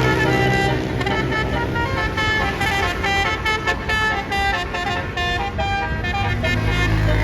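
Bus telolet horn (multi-tone 'basuri' horn) playing a quick melody of short stepping notes. Underneath is the low rumble of a bus engine, which swells again near the end.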